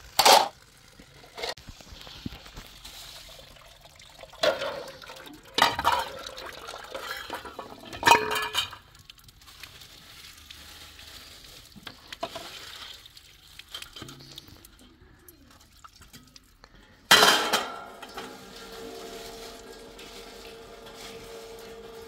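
Pots and dishes clattering in a handful of separate knocks and clinks, then water running steadily for the last few seconds.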